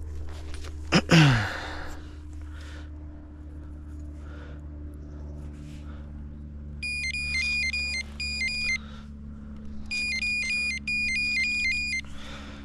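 Rapid electronic beeping, high tones switching in a quick pattern, in two runs of about two seconds each in the second half, over a steady low hum. About a second in, a brief loud noisy sound sweeps down in pitch, the loudest moment.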